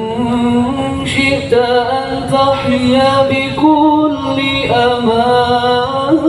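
Male voice singing a sholawat, an Arabic devotional song, in long held notes that bend and glide between pitches.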